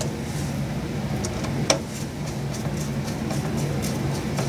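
A sharp click of hard parts knocking together about a third of the way in, with a few fainter ticks, as computer components are handled and fitted, over a steady low hum.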